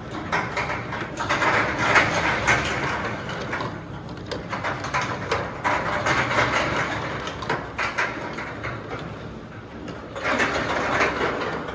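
CX-GFT automatic 60 ml plastic bottle filling and capping line running: continuous mechanical clatter with frequent clicks and knocks, and a rushing noise that swells and fades in stretches of a few seconds.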